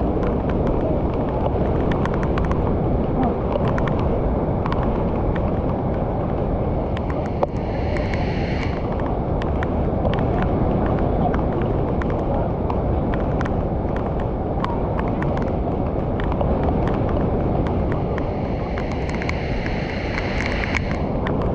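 Muddy floodwater pouring over a weir and churning through a flooded pool: a steady, loud rush of turbulent water.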